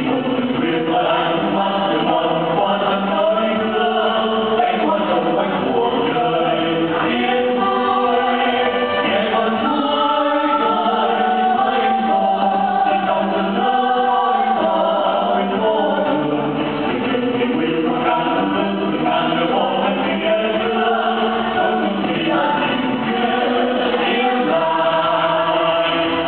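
A mixed choir of men and women singing together in Vietnamese into microphones, holding long sustained notes without a break.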